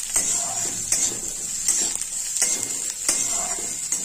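Sliced onion, curry leaves, dried red chillies and mustard seeds sizzling in hot mustard oil in a steel kadai. A metal spatula stirs them and scrapes the pan in strokes a little more than once a second.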